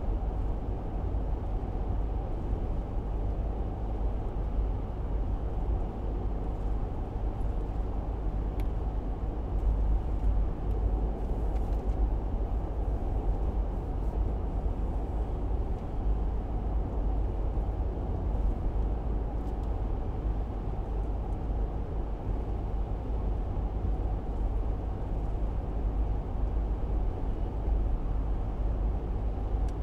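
A car driving steadily: continuous road and engine noise that is heaviest in the low rumble and stays even throughout, with a few faint ticks.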